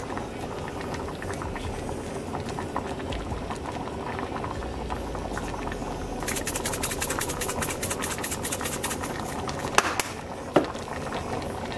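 Pot of chili with beans and sausage bubbling steadily at a boil. About six seconds in, a dense crackling hiss lasts about three seconds as chili seasoning mix is sprinkled onto the surface, followed by two sharp taps near the end.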